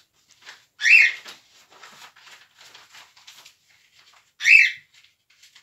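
Paper and envelopes rustling as greeting cards are handled. Two short, loud, hissy sounds come about a second in and again near the end.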